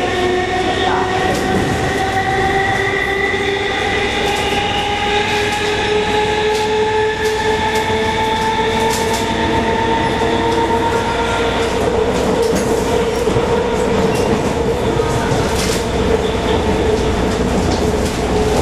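Traction motor whine of an MLR (Metro-Cammell) electric train's motor car, with its nose-suspended motors, rising slowly in pitch as the train accelerates and then holding steady at speed. Scattered clicks run along with it.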